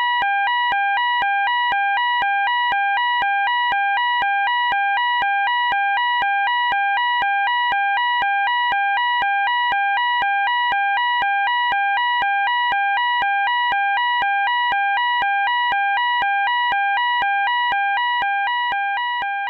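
Electronic fire alarm sounding a two-tone hi-lo warble, switching rapidly between two pitches a few times a second, fading out near the end.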